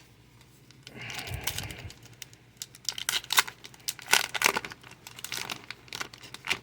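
Foil Pokémon booster pack wrapper crinkling and being torn open, with a soft rustle first and then a run of sharp crackles from about two and a half seconds in.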